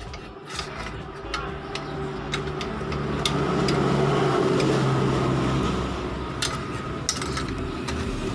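A tool scraping and knocking inside an Apido motorcycle exhaust pipe as its old fiber packing is poked out, with scattered sharp knocks and a louder stretch of rasping scraping in the middle.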